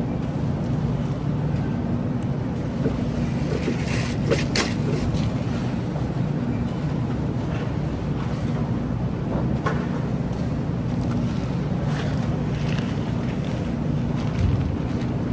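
Steady low machine hum, with a few light knocks and clicks scattered through it.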